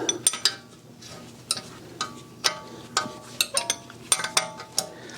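Metal clinks of a 13 mm box-end wrench against the hub assembly's mounting bolts as they are broken loose, about a dozen irregular clinks, several ringing briefly.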